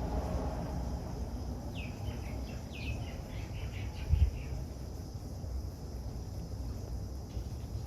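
Outdoor ambience: a steady low rumble with a faint high hiss, through which a run of about ten quick, short chirps, each falling in pitch, sounds from about two seconds in to about four and a half. A single low thump comes about four seconds in.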